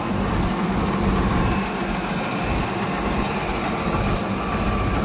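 New Holland 3630 tractor's three-cylinder diesel engine running at a steady speed, a low even hum with no revving.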